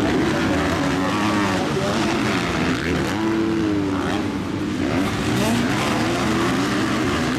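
Motocross dirt bikes' engines revving up and dropping back again and again as the riders accelerate out of the bends and over the jumps. Several bikes can be heard at once.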